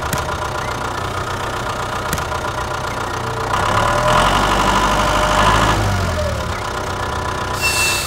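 Tractor engine running steadily, growing louder for a few seconds in the middle as the tractor pulls its loaded trolley.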